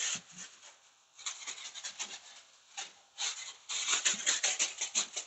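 Plastic bag rustling and crinkling in rapid strokes, coming in bursts with short pauses and busiest near the end.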